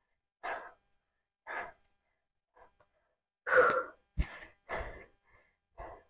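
A woman breathing hard between exercise sets, with heavy breathy exhales and sighs about once a second, the loudest a little past the middle. A short knock sounds just after it.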